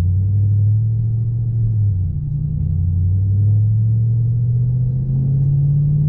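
2010 Chevrolet Camaro SS's 6.2-litre V8 running under light throttle, heard from inside the cabin as a low rumble. Its note dips about two seconds in, then rises slowly.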